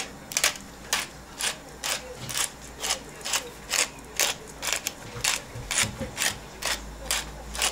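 Minced meat being mixed with eggs in a bowl: a steady rhythm of short mixing strokes, about two a second.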